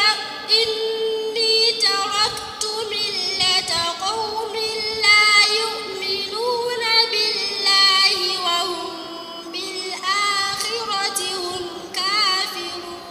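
A girl's voice reciting the Qur'an in a melodic chant, with long drawn-out notes and ornamented turns of pitch. The phrases sink lower toward the end.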